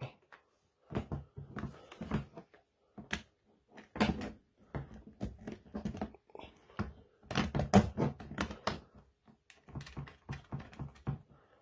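Irregular clicks and light knocks of plastic and metal parts being handled: a backrest frame's red plastic bracket being pushed onto bolts in the side of a plastic seat box and a nut being put onto a bolt.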